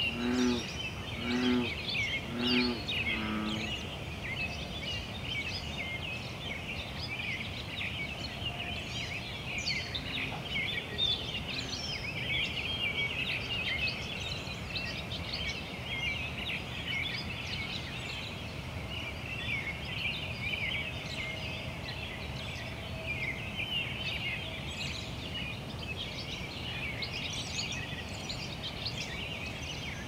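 Chorus of frogs: a continuous dense mass of short high chirping calls, with a deeper frog giving a series of about five low croaks roughly a second apart in the first few seconds and starting again at the very end.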